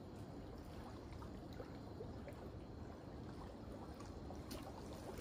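Small waves lapping at a lakeshore: a faint, steady wash of water with a few small splashes and ticks.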